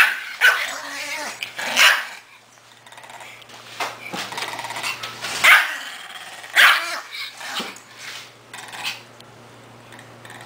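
Small dog barking playfully at a person's hand in short, sharp barks. A few come near the start, then a pause of about three seconds, then several more.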